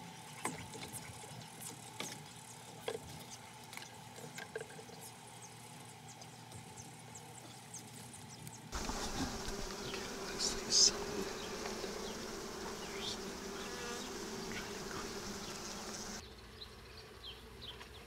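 Honeybees humming around an open hive, the hum louder through the middle stretch, with a few small clicks and knocks of wooden hive frames being handled.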